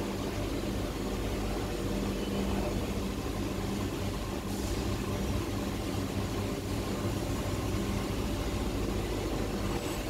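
EDM machine running with a steady low mechanical hum.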